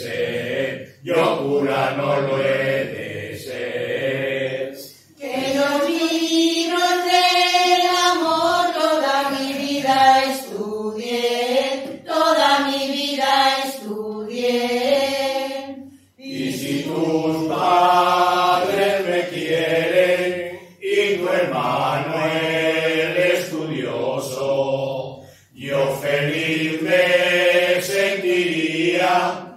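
Choir of men and women singing together, in long phrases broken by short pauses every few seconds.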